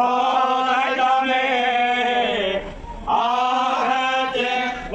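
A group of temple priests chanting a hymn in unison, male voices sustaining and gliding between notes, with a short pause for breath a little over halfway.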